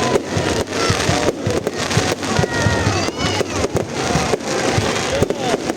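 Fireworks going off in quick succession: a dense run of bangs and cracks, several a second, with gliding tones mixed in.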